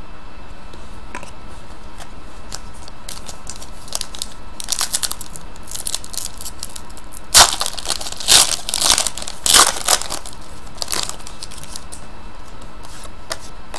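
Foil wrapper of a trading card pack being torn open and crinkled by hand: a string of short crackly bursts from about four seconds in to about eleven, loudest in the middle, over a steady background hiss.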